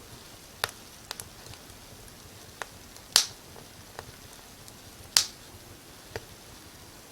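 Firewood burning in a fireplace, crackling with sharp pops at irregular intervals, two of them much louder than the rest, over a faint steady hiss.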